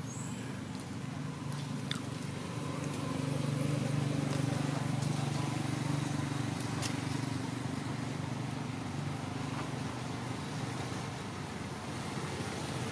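A steady low motor hum that grows louder for a few seconds and then eases off, with a few faint clicks.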